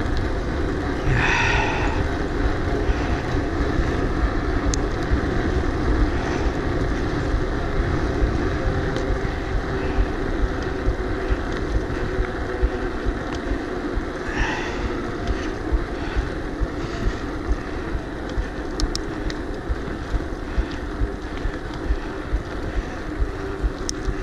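Wind buffeting the rider's camera microphone and bicycle tyres rolling on a paved road as a mountain bike is ridden along at speed.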